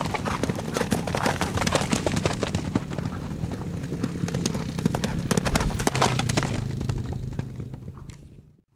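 Hooves of several horses clip-clopping at a walk or trot, the sound dying away near the end.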